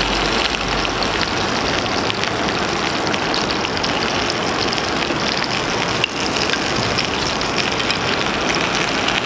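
Hakka stuffed tofu, with stuffed bitter gourd and eggplant, sizzling steadily as it pan-fries in oil: a dense crackling hiss, briefly dipping about six seconds in.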